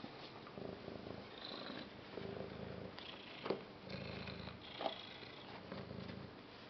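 Domestic tabby cat purring, the low rumble coming in stretches of about a second with short breaks between breaths. Two short sharp clicks stand out, about three and a half and five seconds in.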